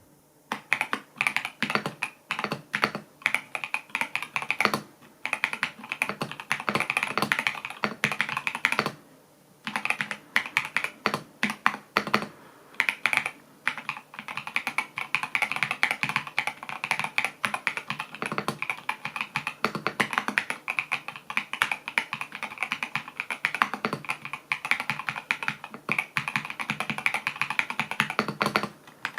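Typing on the Epomaker Shadow-X, a gasket-mount 70% mechanical keyboard: a fast, steady run of keystrokes with a few short pauses.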